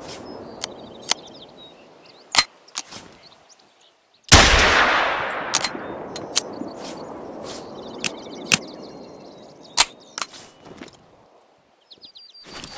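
One loud pistol shot about four seconds in, echoing and fading away over a couple of seconds. Quieter, sharp cracks are scattered before and after it.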